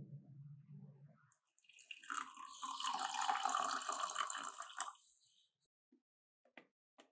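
Water poured from a glass jug into a plastic blender cup, a splashing stream lasting about three seconds. Near the end come a couple of short clicks as the cup is fitted onto the blender base.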